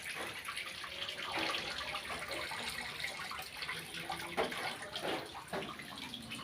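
Water running and splashing out of a single-tub washing machine as it drains, with a steady rushing hiss and irregular splashes.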